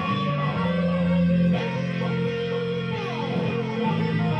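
Jackson electric guitar played lead over held low notes, a melodic line with string bends; a sharp new attack about one and a half seconds in, and sliding notes gliding up and down about three seconds in.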